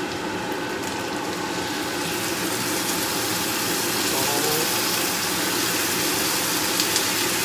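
Shredded roast chicken sizzling in a hot frying pan as thick lechon sauce is stirred in with a wooden spatula; the sizzle grows a little louder about two seconds in.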